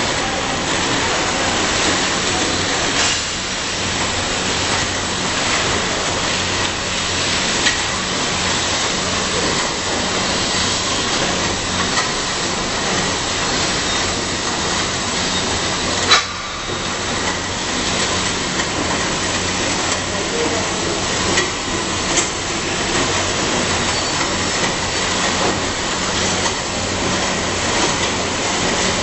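Screw conveyor for sand and cement running, discharging material from its outlet spout: a steady, even rushing noise over a low electric hum, with one sharp knock about halfway through.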